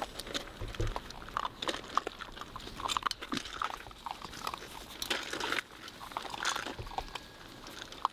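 Weimaraner puppies eating from metal bowls and mouthing a hand: irregular crunching, chewing and licking.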